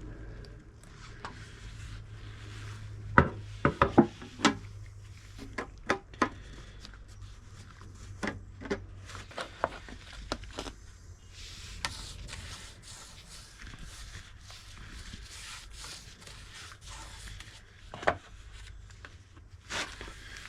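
Knocks and rubbing on wood as a dresser is worked on: a quick run of sharp knocks about three seconds in, a few more scattered later, and a stretch of hissy rubbing or brushing in the second half, over a low steady hum that fades out near the middle.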